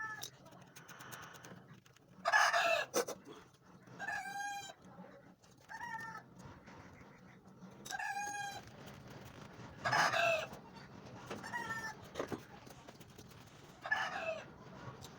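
A bird, chicken-like, calling repeatedly: short calls roughly every two seconds, some pitched and some harsher, over a faint steady low hum.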